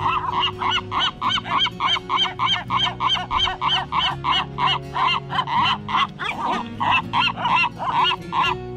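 Gulls calling loudly in a fast, even series of harsh calls, about four a second, stopping just before the end.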